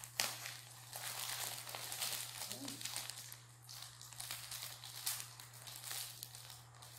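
Clear plastic parcel wrapping crinkling and rustling as hands work at it, in irregular bursts, with a sharp crackle just after the start.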